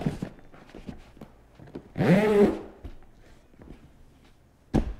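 The heavy waterproof zipper of a Yeti Panga dry duffel is pulled shut. About two seconds in it gives one loud squeaking rasp that rises and falls in pitch. Light handling clicks come before it, and a short thump near the end.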